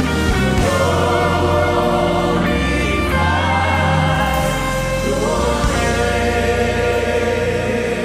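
Gospel worship music: voices singing together in long, held lines over a steady bass.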